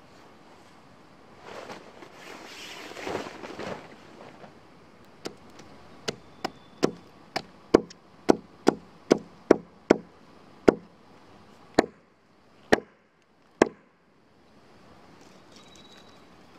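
Hatchet chopping at a stick held against a pine log, sharpening it into a pointed stake: about fifteen sharp wooden knocks, quickening to two or three a second and then spacing out, with a rustle of handled gear a couple of seconds before the chopping starts.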